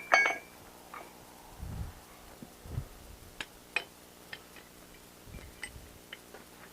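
Steel tools being handled at the anvil: one loud ringing clang of metal on metal just after the start, then scattered light metallic clinks and a few dull knocks.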